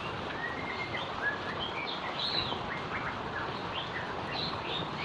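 Steady rain falling, an even hiss, with birds chirping over it in many short rising and falling calls from about half a second in.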